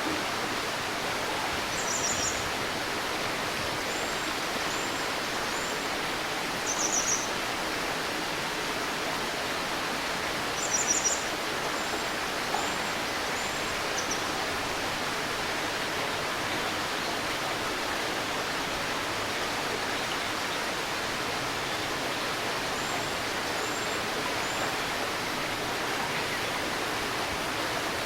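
A stream's steady murmur of flowing water, with a small bird calling high above it: short clustered bursts of notes about 2, 7 and 11 seconds in, and runs of three or four brief faint chirps between them and again past the middle.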